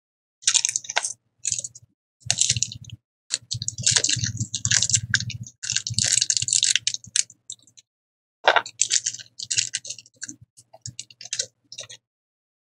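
Small plastic bead bags crinkling and rustling as they are handled, in irregular bursts with short pauses, mixed with light clicks of beads being picked up and set down on the bead board.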